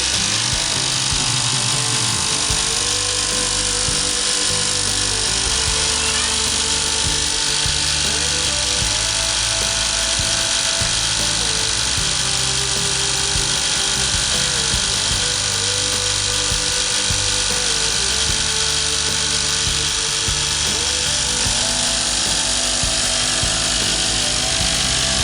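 Electric straight-knife cloth cutting machine running steadily as it cuts through a thick stack of fabric layers. Background music with a stepping melody and bass plays along with it.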